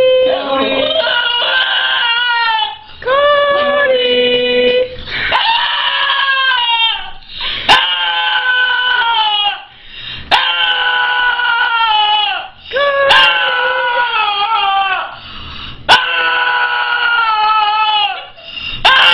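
Small dog howling in long, drawn-out, voice-like calls, about eight of them, each around two seconds long with its pitch sliding down at the end and short breaks between: the dog's 'yelling' as if calling for someone. A few sharp clicks come between calls.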